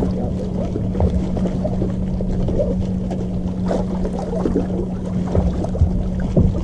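Water lapping and splashing against a bass boat's hull, with wind on the microphone and a steady low hum underneath.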